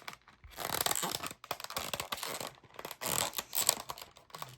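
A small boxed model airplane being opened by hand: a run of irregular scratchy noises from the box and its packaging being pulled and worked open.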